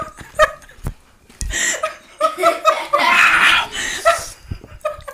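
A woman laughing in short, repeated bursts, with a longer breathy stretch about three seconds in.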